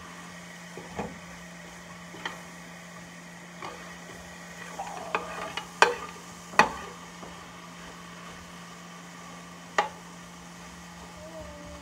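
Vegetables sizzling in butter in a large stainless steel pan while a metal spoon stirs them, the spoon clanking against the pan several times, loudest twice around the middle. A low steady hum runs underneath.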